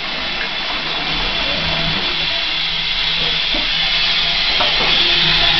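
1960 Shires Lynx low-level toilet cistern refilling after a flush: a steady hiss of water running in, slowly growing louder toward the end.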